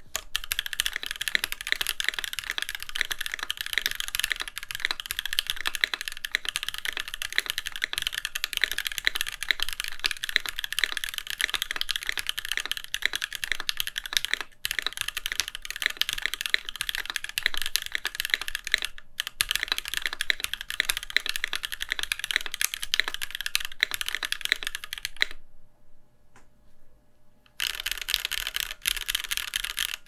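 Fast typing on a Keychron Q1 aluminium mechanical keyboard with factory-lubed Gateron Phantom Red linear switches: a dense run of keystrokes, nice and dampened, with some ping still left in the case. The typing breaks off briefly twice, then stops for about two seconds near the end before picking up again.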